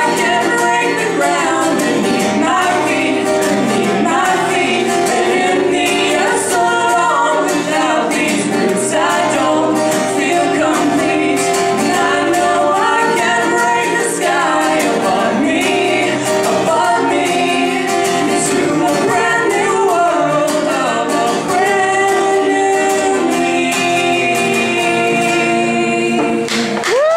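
A band performing a song live, with singing over sustained instrumental notes.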